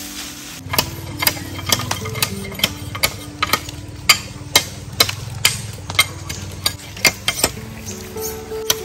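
Repeated sharp chopping strikes, about two a second, starting just under a second in, over soft background music.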